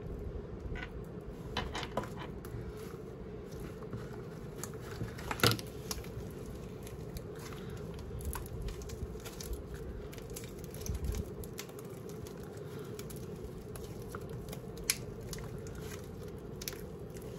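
Slime being kneaded and stretched by hand as red dye is worked in: scattered soft, sticky clicks and crackles, one sharper click about five seconds in, over a faint steady hum.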